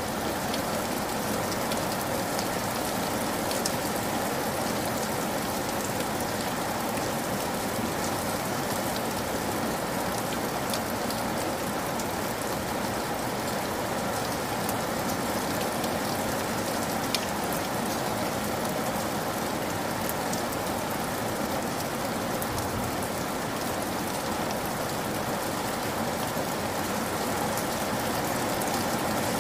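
Heavy rain pouring steadily onto wet ground, an even splashing hiss with a few sharper drop impacts here and there.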